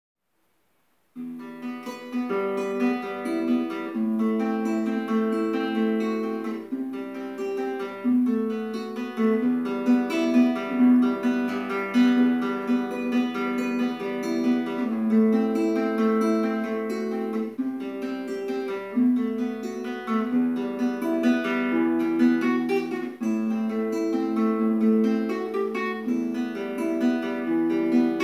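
Solo classical nylon-string guitar, fingerpicked: a melody of plucked notes over bass and chord notes, starting about a second in.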